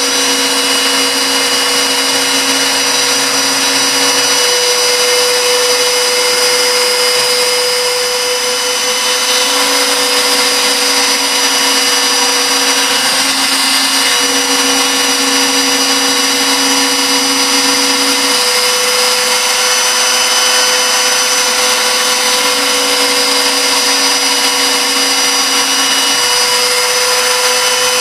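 3-axis milling machine contouring aluminium 6061 with a small end mill: steady spindle whine and cutting noise. A lower tone switches on and off every few seconds as the cut moves along.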